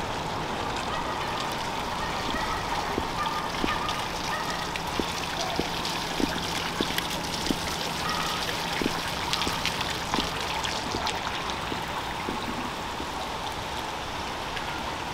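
Steady splashing and trickling of water from a tiered ornamental park fountain, easing a little near the end as it is left behind. Footsteps on the path sound as soft knocks about every half second in the middle.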